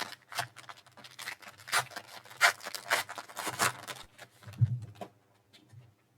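Trading cards being handled: a run of irregular rustling and sliding scrapes of card stock and plastic sleeves, dying away about five seconds in.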